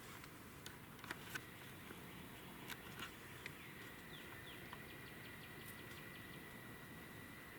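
Faint backyard songbirds calling: a few short falling chirps and a long, steady, high trill, with scattered light clicks in the first half.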